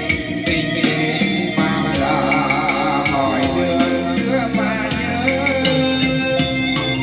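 A Vietnamese pop song played back over loudspeakers on test: a singing voice with vibrato enters about a second and a half in, over instrumental backing with a regular percussion beat.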